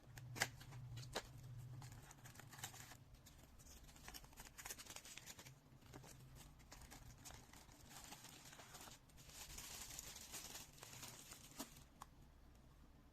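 Faint rustling and crinkling of packaging with scattered light clicks.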